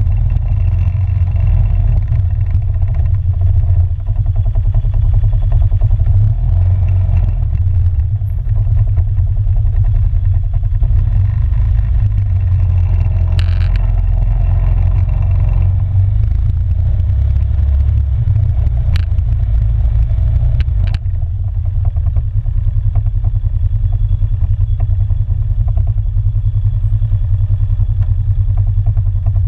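Polaris 570 ATV's single-cylinder engine running steadily as the quad rides along a gravel trail, a loud low rumble. A few sharp knocks come through partway along.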